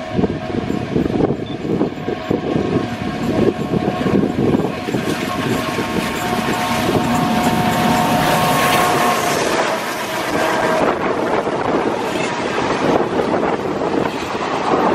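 ALCO WDM3D diesel-electric locomotive's turbocharged V16 engine chugging as it approaches, with a steady tone over it for several seconds, loudest as it passes about halfway through. Passenger coaches then roll by with wheels clattering over the rails.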